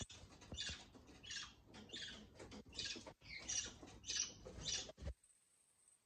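Budgerigars chirping and chattering: a run of short squeaky calls, about two a second, stopping about five seconds in.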